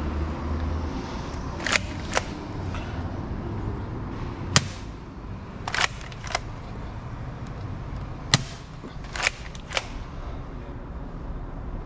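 Bug-A-Salt 3.0 pump-action salt gun being fired and re-cocked: a series of about eight sharp snaps and clicks, the loudest two about four seconds apart.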